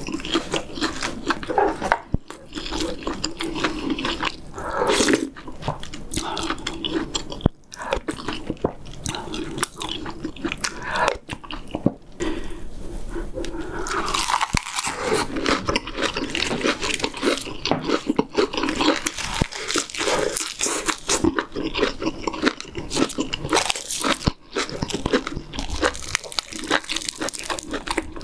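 Close-miked eating sounds: chewing pork back ribs, kimchi and rice, with wet crunching and biting, and a busier stretch of crunching through a lettuce wrap from about halfway through.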